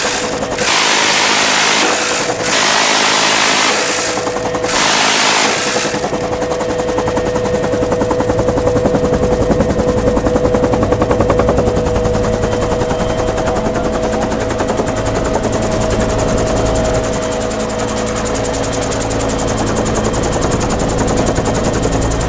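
Dillon Aero M134 minigun firing 7.62×51mm in several long, unbroken bursts over the first five seconds or so. It then falls silent, leaving the Bell UH-1 Huey in flight: a steady turbine whine with the beat of the rotor.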